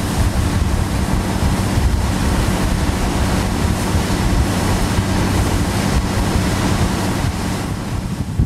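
Wind buffeting the microphone over the rush of the wake, with the steady low drone of a Nelson 34 motor cruiser's engines running at speed.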